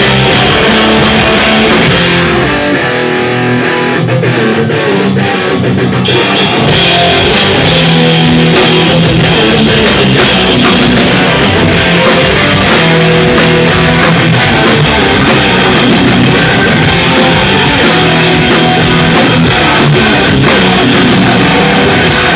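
Hardcore band playing live and loud: distorted electric guitars, electric bass and drum kit. The high end drops away about two seconds in, and the full band comes back in at about six seconds.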